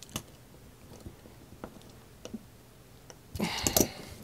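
Small clicks and taps of hands handling a plastic power-supply case, scattered at first, then a louder cluster of clattering and rustling near the end as the case is turned over.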